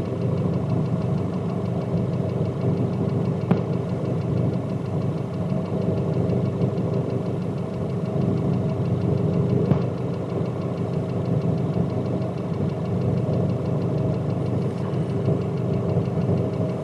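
Nissan YD25 common-rail diesel idling with a steady, fast clatter, the crackle that the owner traces to a sticking injector needle.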